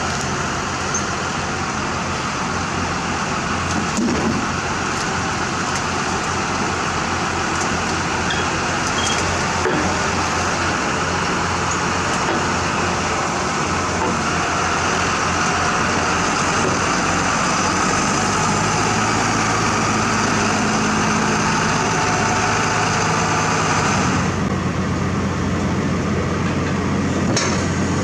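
Caterpillar 120H motor grader's diesel engine running steadily under load as the grader drives down the ramps off a self-loader truck's deck. The engine note shifts about two thirds of the way through, and the upper hiss drops away near the end.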